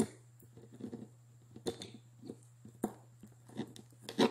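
Hands handling a small perfume bottle and its cap: a string of light separate clicks and knocks, about seven, with the loudest one near the end.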